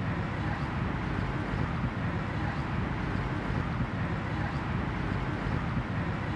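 Steady low rumble of a boat under way on the water, unchanging throughout.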